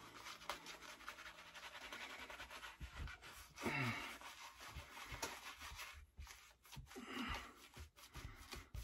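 Rockwell 6S safety razor scraping through soap lather on a head, a run of short, faint strokes. A short falling tone about four seconds in is the loudest sound.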